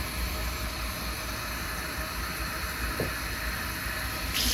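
A steady low rumble with a faint hiss, one small click about three seconds in, and then a tap turned on right at the end, its water starting to run loudly.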